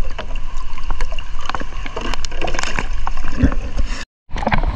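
Water splashing and sloshing right at a waterproof camera held at the surface of a fast-flowing river, with many small knocks and rain falling on the water. The sound drops out for a moment near the end.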